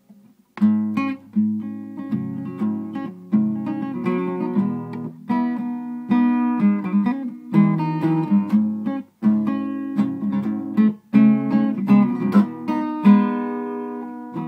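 Acoustic guitar strumming chords as the intro to a song, starting about half a second in.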